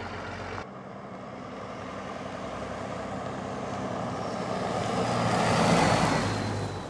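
Cummins 5.9 diesel-swapped square-body GMC pickup driving toward the camera and past it. The engine sound builds to its loudest as the truck goes by close, about six seconds in, with a faint high whine that drops in pitch, then starts to fade.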